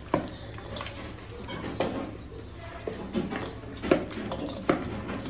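Raw chicken wings being mixed by hand with spice powder in a stainless steel bowl: the meat is rubbed and tossed around the bowl, with about four sharp knocks of meat and hand against the metal.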